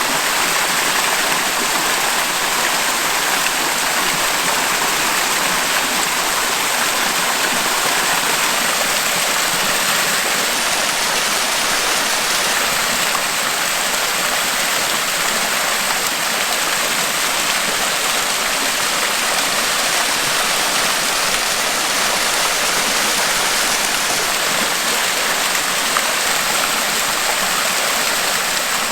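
Small waterfall and brook rushing steadily, a dense even splashing of water over tufa limestone steps.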